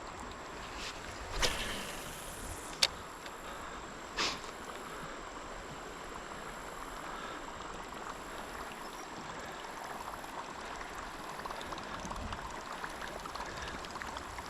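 Steady rush of flowing river water, with three short sounds in the first few seconds: a brief noise, a sharp click, and another brief noise.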